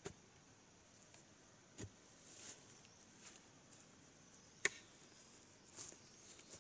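Faint, scattered chopping strikes of a long-handled hand tool into the ground and undergrowth, three in all with the loudest about two-thirds of the way through, and soft rustling of ferns and brush in between.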